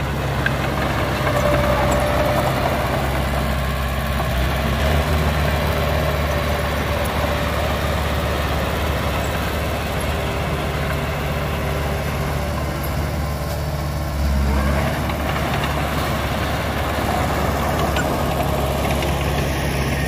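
Heavy diesel engine of a construction machine running steadily, with a brief swell in the low engine sound about two-thirds of the way through.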